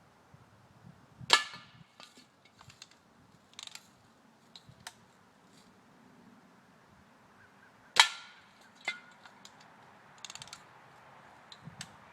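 Two sharp BB gun shots, about six and a half seconds apart, each with a brief ringing tail, and lighter clicks between them.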